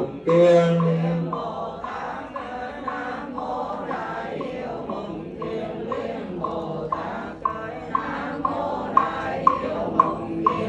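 Funeral chanting: a voice sings a wavering melodic line, loud at the start and then fainter, over a steady beat of short percussive taps at about two a second.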